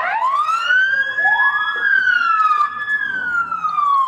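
Emergency vehicle sirens wailing, at least two overlapping: one sweeps up at the start, holds and slowly falls, while a second rises about a second in.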